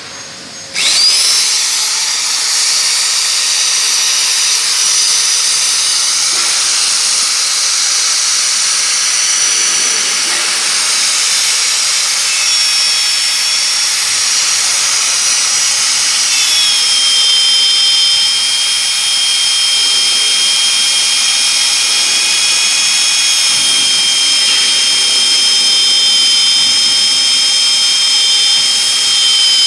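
ALFRA RB 50 X magnetic core drill's electric motor starting about a second in with a rising whine, then running with a steady high-pitched whine. The whine drops in pitch twice partway through.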